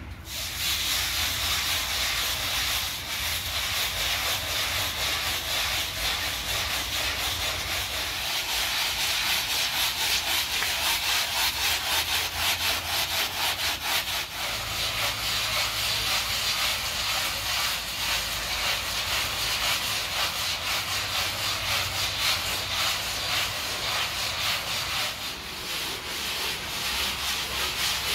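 A handheld bristle scrub brush scrubbing a wet, soap-foamed rug in quick repeated strokes, a steady scratchy rubbing.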